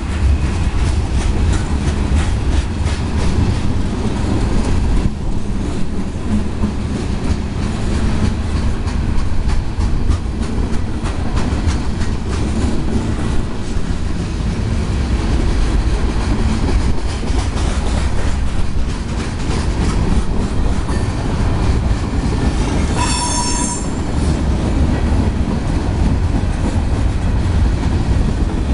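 Freight cars rolling past close by: a steady low rumble with the wheels clicking over the rail joints. About three-quarters of the way through there is a brief high metallic squeal from a wheel.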